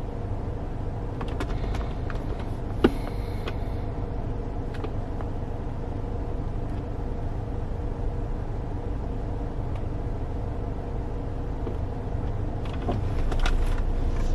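Steady low hum of an idling car heard from inside the cabin, with a few light clicks and one sharper knock about three seconds in.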